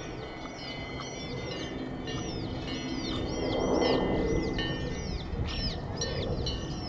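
Many small birds chirping together, a fast, overlapping stream of short high chirps. A broad rushing swell of noise builds and peaks about four seconds in, then fades.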